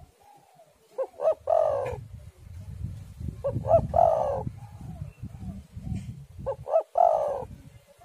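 Spotted dove cooing three times, about every three seconds: each phrase is a couple of short notes and then a longer drawn-out coo. A low rumble runs underneath.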